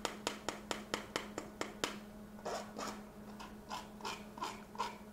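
Dry biscuit ingredients being sifted through a hand flour sifter: sharp rhythmic clicking about four times a second, turning about two seconds in to softer scraping strokes.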